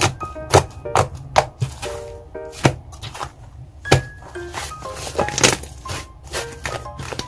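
Slime being pressed and poked by hands, giving sharp, irregular popping clicks, over light background music.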